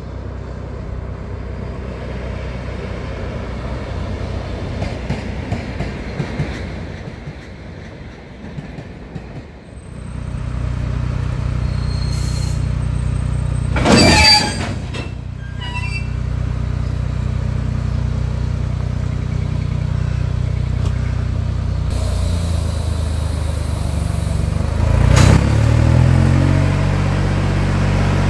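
Dv12 diesel locomotive running close by, its engine a steady hum that revs up with a rising note near the end. A brief loud shrill squeal comes about halfway through.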